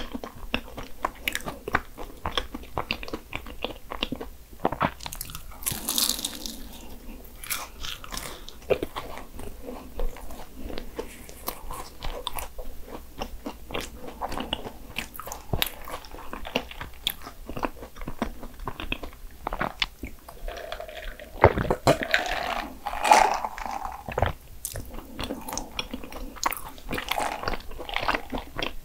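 Close-miked biting and chewing of flaky Portuguese egg tarts (pastel de nata), a dense run of small crisp crunches from the pastry shell, with a few louder bites about two-thirds of the way in.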